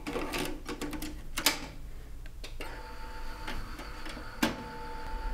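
Akai MD280 Quick Disk drive taking a disk: a few clicks and clunks as the Quick Disk is pushed into the slot, then about two and a half seconds in the drive motor starts a steady whirring hum, with one sharp click about four and a half seconds in. The drive is spinning up to load on its newly replaced rubber drive belt.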